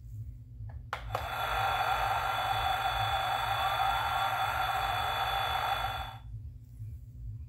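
Spin Master The Batman Batmobile toy playing its electronic sound effect through its small built-in speaker. It starts about a second in, just after two clicks, and cuts off suddenly about a second and a half before the end.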